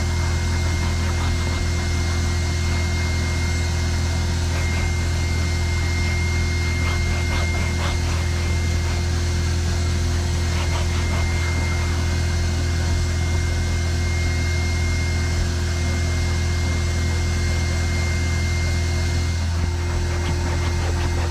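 Steady machine hum: a constant low drone with a faint steady high tone. Over it, a microfiber towel faintly rubs and wipes across cloth seat upholstery.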